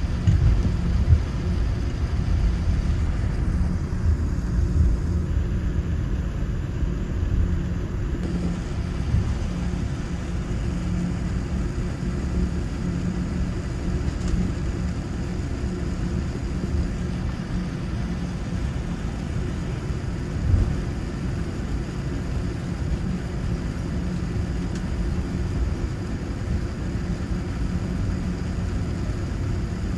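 Steady low rumble in the cabin of a Boeing 787-9 on the ground after landing, with a short knock about a second in and another about twenty seconds in.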